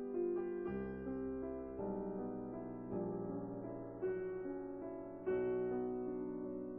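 Slow, gentle piano music, with new notes struck about once a second.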